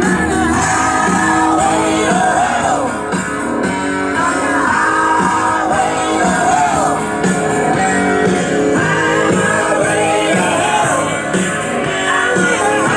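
A rock song with a singer and guitar, played loud through a motorcycle's custom audio system of subwoofers, midrange speakers and tweeters.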